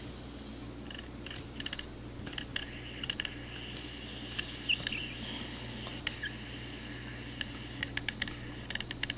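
Ouija board planchette sliding over the board with a high, squeaky friction scrape and small ticks, in short spells, over a steady low hum.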